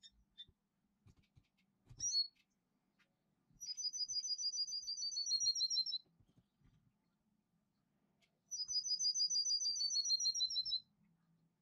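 Songbird singing: two long, rapid trilled phrases of quick repeated notes, each lasting a couple of seconds and dropping slightly in pitch at the end, about four and nine seconds in, with a short chirp about two seconds in.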